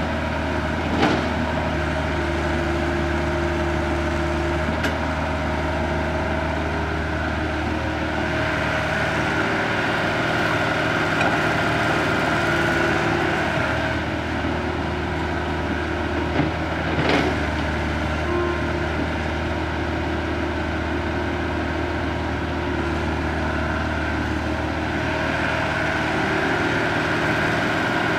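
Diesel engine and hydraulics of a Caterpillar tracked excavator working steadily under load as it digs soil, swings and dumps it into a dump truck bed, with the engine's pitch shifting as the arm moves. A couple of sharp knocks stand out, about a second in and again around seventeen seconds in.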